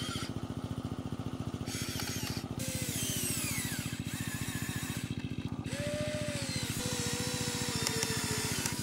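HUINA remote-control model excavator running: a fast, even, engine-like pulsing, with motor whines gliding up and down over it as the boom and bucket move.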